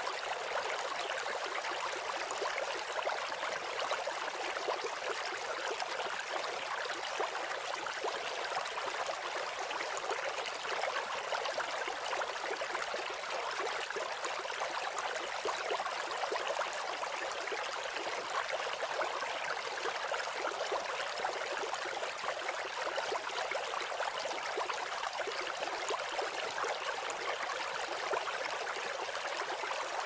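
Steady, even rush of flowing water, thin and hissy with no low rumble.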